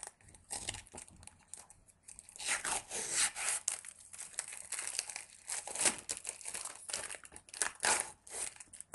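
Label wrapper being torn and peeled off a cut section of a plastic 2-liter soda bottle, crinkling and tearing in irregular bursts, busiest from a couple of seconds in to near the end.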